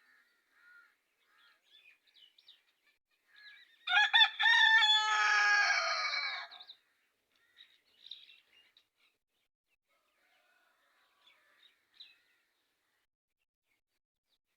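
A rooster crowing once, loud, for about three seconds starting about four seconds in, with faint small-bird chirps around it.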